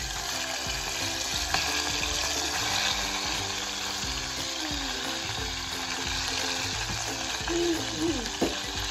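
Pork pieces sizzling and frying in hot oil in a metal saucepan as they are dropped in, a steady crackling hiss.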